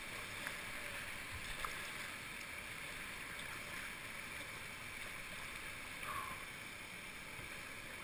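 Steady rush of creek whitewater flowing over rocks, with a couple of faint ticks about half a second and a second and a half in.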